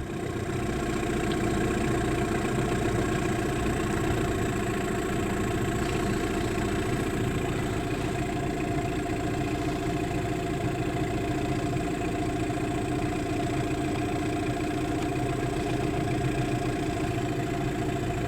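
Boat motor running steadily at an even speed, a constant engine hum.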